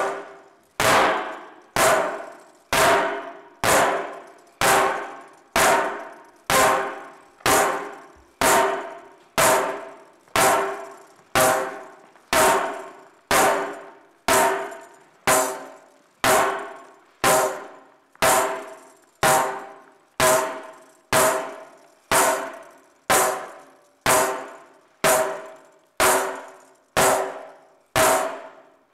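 Tambourine struck with a stick in a slow, steady beat of about one stroke a second, each stroke ringing out briefly before the next.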